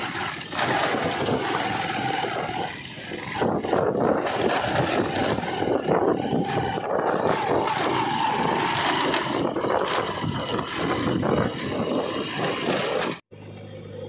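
Motorcycle engine running on a rough dirt road, heard from the bike itself, under heavy wind and road noise; its faint note rises a little past the middle. Near the end it cuts off abruptly to a steadier, lower engine hum from a JCB 3DX backhoe loader.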